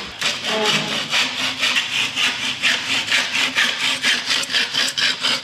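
Wood being worked by hand with quick, even back-and-forth strokes, about four or five a second, in the manner of hand sawing.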